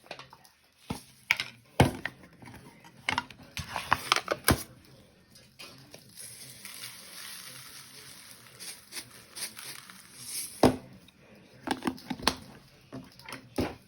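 Kitchen handling sounds: a string of sharp knocks and clatters of dishes and utensils, with a few seconds of dry rustling in the middle.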